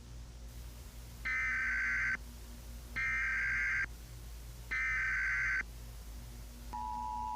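Emergency Alert System SAME header: three short bursts of digital data tones, each just under a second, sent about a second apart. Near the end the steady two-tone EAS attention signal begins, announcing an emergency alert.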